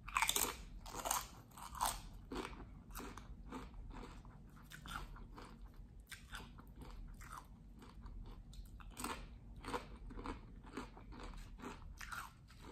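Close-up chewing of a crunchy salad mouthful: many crisp crunches and bites in quick, uneven succession, loudest in the first couple of seconds.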